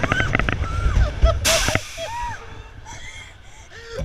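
Wooden roller coaster train rumbling along the track, dying away about two seconds in as the train slows near the end of the ride. A brief hiss comes about a second and a half in, and riders' short voices and calls are heard throughout.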